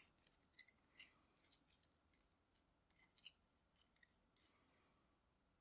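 Faint, scattered small metallic clicks and taps from padlock keys and laminated steel padlocks being handled, about a dozen light ticks spread irregularly.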